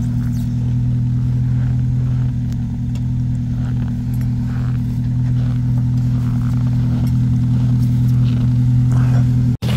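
An engine idling steadily: an even low hum that holds without change, with a few faint knocks over it.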